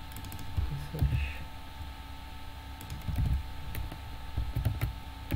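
Computer keyboard typing: irregular keystrokes as a line of code is written.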